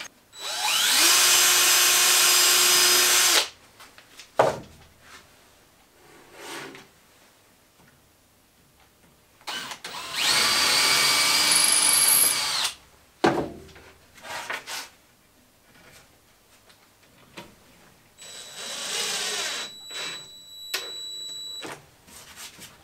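Cordless DeWalt drill/driver running in three bursts of about three seconds each, driving screws into plywood. The first burst spins up with a rising whine, and the third is quieter. Short knocks and clunks of handling come between the bursts.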